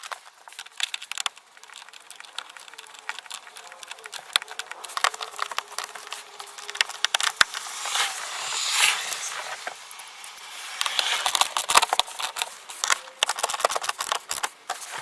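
Rapid, irregular clicking and crackling from hand work on the dash speaker mounting: plastic parts being handled and a 7mm fastener being worked with a hand tool. The clicking grows louder and denser in two stretches, near the middle and after about eleven seconds.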